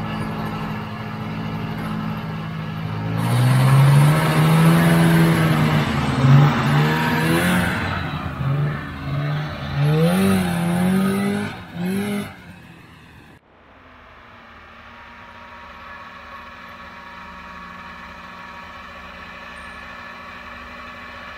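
1977 Polaris TX340 snowmobile's two-stroke engine idling, then revving up and down repeatedly, its pitch rising and falling as the sled is run, sluggish off the line, which the riders blame on a worn-out original primary clutch. About two-thirds of the way through the sound drops abruptly to a quieter, steady engine drone.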